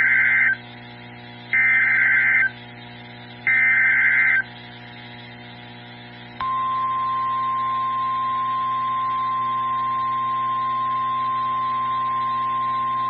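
NOAA Weather Radio alert signalling a tornado warning: three short bursts of the warbling SAME digital header, about a second each with a second's gap between them, then after a short pause the steady single-pitch warning alarm tone starts about six seconds in and holds.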